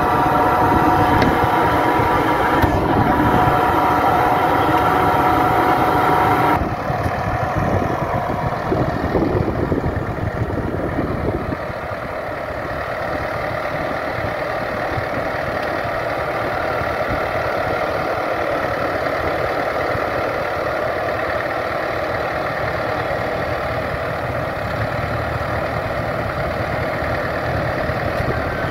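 Tractor running with the PTO-driven vacuum fan of a six-row pneumatic planter close by, a steady multi-tone whine over the engine. About six and a half seconds in it cuts to the tractor heard farther off, pulling the planter steadily across the field.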